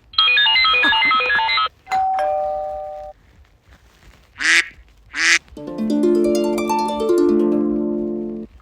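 iPhone ringtone previews played one after another, each cut off abruptly: a fast electronic beeping pattern, a two-note doorbell chime falling in pitch, two short duck quacks, then a long harp-like run of plucked notes.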